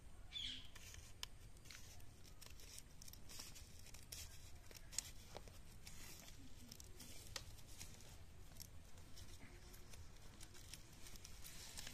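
Scissors snipping down the side of a polythene bag plant pot, with the plastic crinkling. The snips are faint and irregular.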